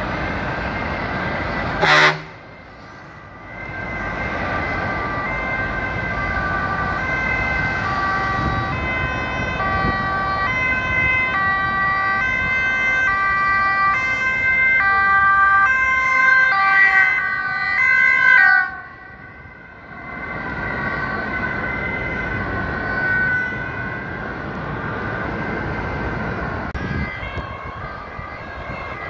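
Sirens of several emergency vehicles passing on a motorway, their two-tone calls alternating high and low and overlapping, over steady traffic noise. The sound breaks off abruptly twice, once just after a sharp click about two seconds in and again about two-thirds of the way through.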